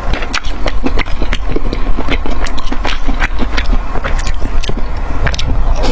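Close-miked eating sounds: a person chewing, with many short wet clicks and crunches, several a second, over a steady low rumble.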